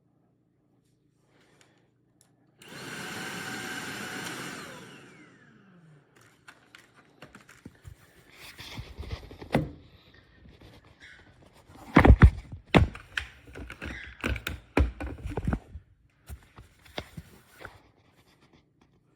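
Tineco Pure ONE S11 cordless stick vacuum's motor runs for about three seconds, then spins down with a falling whine. A run of clicks and knocks follows, with the loudest thumps about midway.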